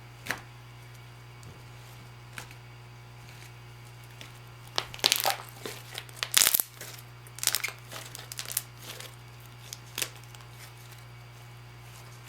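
Slime being squeezed and poked by hand, giving a run of short crackling and popping sounds for about five seconds midway, over a steady low electrical hum.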